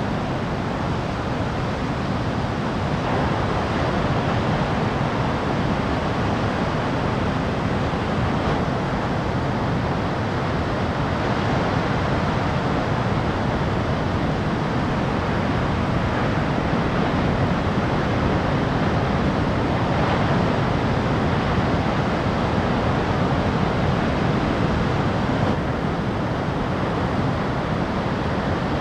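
Big ocean swell breaking on the coast, heard as a steady wash of surf noise with a low rumble underneath.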